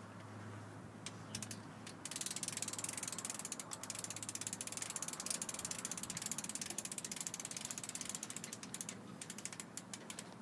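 Crank mechanism of a 9-foot market umbrella ratcheting as the umbrella is cranked open: a few clicks about a second in, then fast, steady clicking from about two seconds in, thinning to scattered clicks near the end.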